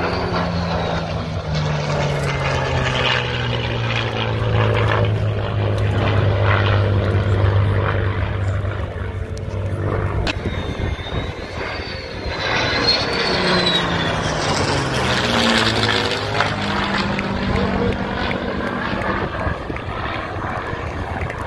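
Aircraft flying past overhead: a steady engine drone whose low hum drops in pitch, with a sweeping, swirling quality in the second half and a thin wavering whistle partway through.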